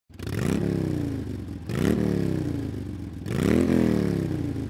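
A motorcycle engine revved three times, each rev climbing quickly in pitch and then sliding back down as the throttle is let off.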